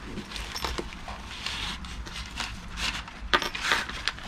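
Unpacking noises: rustling of packaging and scattered light clicks and taps as the rod is handled, with one sharper click near the end.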